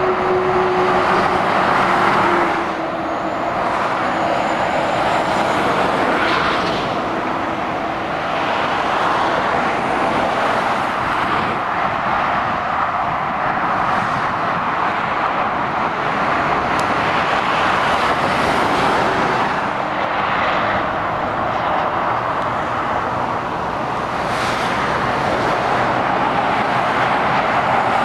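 Continuous motorway traffic passing below: tyre noise and engines of cars, vans, a coach and heavy lorries, swelling and easing a little as vehicles go by.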